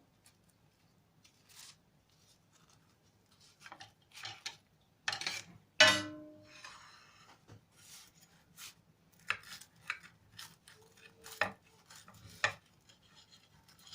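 Kitchen utensils and dishes handling a hot, crisp baked yufka pastry: scattered taps, scrapes and light crunches, with one sharp clink about six seconds in that rings briefly.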